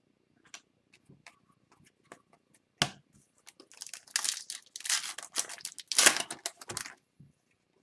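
Trading cards and their packaging being handled: a few light clicks, a sharp snap about three seconds in, then about three seconds of crinkling and tearing, loudest near the end.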